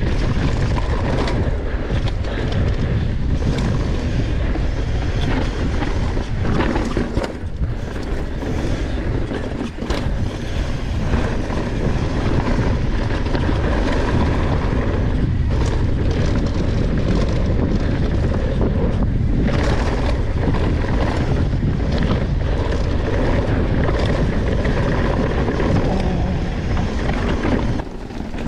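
Wind buffeting an action camera's microphone on a fast downhill mountain-bike run, over tyre noise on dirt and the bike rattling. Scattered knocks come from bumps and landings.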